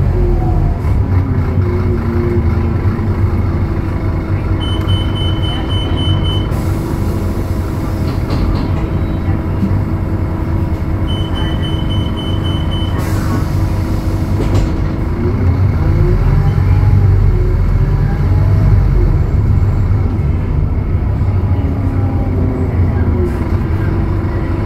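Interior sound of a Scania K280UB city bus with its Scania DC09 five-cylinder diesel: the engine settles to a steady idle, a high beep sounds twice, each followed by a hiss of compressed air, then the engine revs up again with rising pitch as the bus pulls away.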